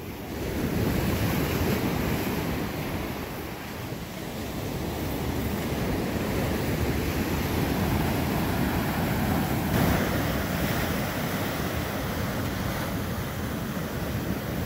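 Ocean surf breaking and washing up the sand, with wind buffeting the microphone in a low rumble.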